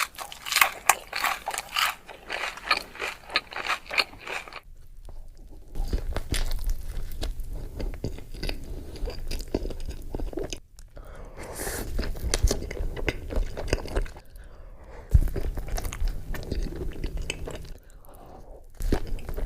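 Close-miked eating of chili cheese dogs: crunchy, crackly bites in the first couple of seconds, then steady chewing with brief pauses between mouthfuls.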